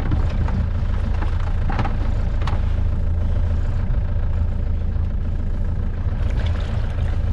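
Motorboat's engine idling, a steady low hum that holds an even level, with a couple of faint clicks about two seconds in.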